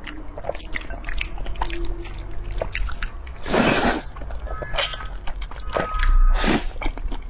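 Close-miked eating: noodles slurped twice with a wet sucking noise, about midway and again near the end, between quieter wet chewing and small clicks of chopsticks against the bowl.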